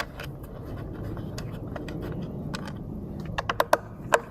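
Small parts of a doorbell camera being handled: scattered clicks and scrapes, with a quick run of sharp clicks about three and a half seconds in and one more just after, over a low steady rumble.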